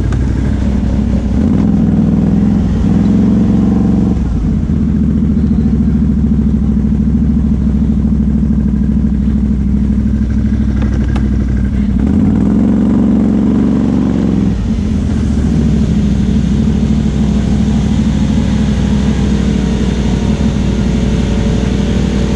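Can-Am Outlander XMR 1000 ATV's V-twin engine, fitted with a Big Gun exhaust, running under throttle on a mud trail and revving up twice, about two and twelve seconds in.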